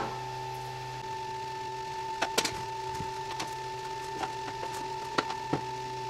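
Steady whine from a powered-on Wanhao Duplicator 4X 3D printer, with a low hum that drops out about a second in. Several light clicks and knocks come from the filament guide tube and printer being handled.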